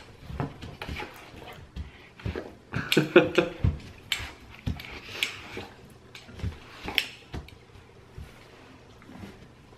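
A dog moving about on a quilted couch cover: scattered soft thumps of paws and rustling fabric, with a short vocal sound about three seconds in.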